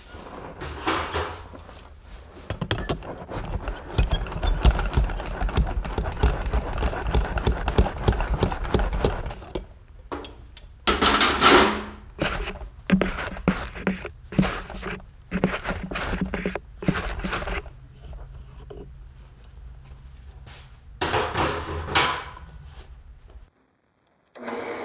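Knifemaking shop work: irregular knocks, clicks and scrapes of tools handled on metal, over a low machine rumble for the first half, with two louder bursts of noise later, then a sudden cut to silence near the end.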